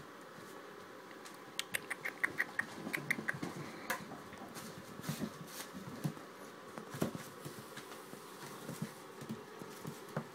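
Young Labrador Retriever puppies playing close to the microphone: scuffling, knocks and rustling of paper bedding, with a quick run of high squeaks about two seconds in.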